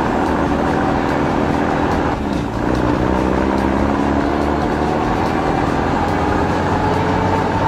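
A vehicle engine running steadily; it dips briefly, then climbs slowly in pitch as if accelerating.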